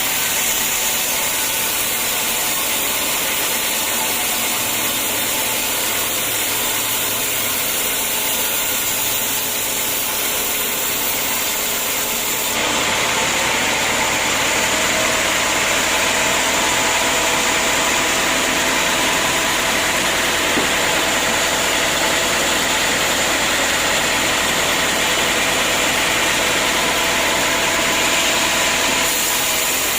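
Sawmill machinery running steadily, a constant mechanical drone with a hiss; the sound changes abruptly about twelve seconds in, becoming slightly louder and fuller.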